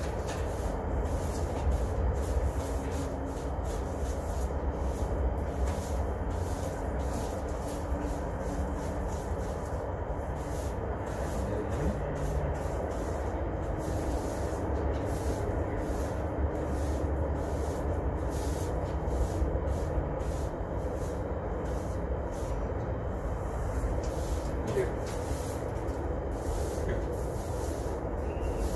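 Brooms sweeping concrete dust and chips across a concrete slab, scratchy stroke after stroke, a couple of strokes a second. A steady low rumble runs underneath.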